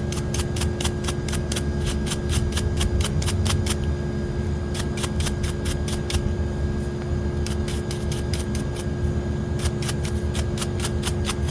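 Electric hair clipper running with a steady hum and a quick, even clicking of about five clicks a second, which pauses twice. Sharpening debris left on the blade is what makes a clipper sound coarse.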